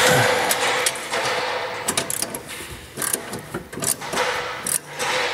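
Scraping, rubbing and a run of light knocks as a spirit level is handled against a stainless steel refrigerator panel during alignment.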